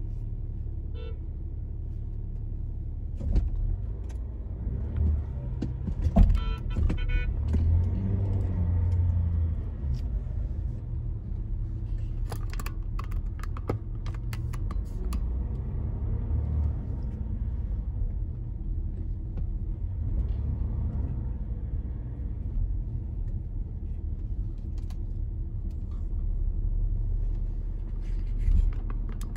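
Inside a car's cabin while driving: a steady low rumble of engine and road, with scattered short clicks and knocks.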